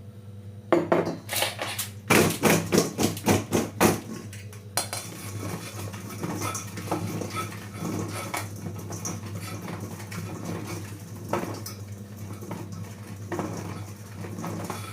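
Kitchen utensils and dishware clattering: a quick run of sharp clinks and knocks about a second in and again between about two and four seconds in, then quieter scattered handling noises.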